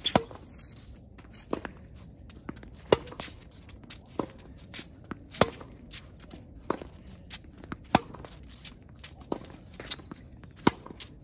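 Tennis rally on a hard court: sharp pops of rackets striking the ball and the ball bouncing, the loudest hits coming about every two and a half seconds, with a few short squeaks in between.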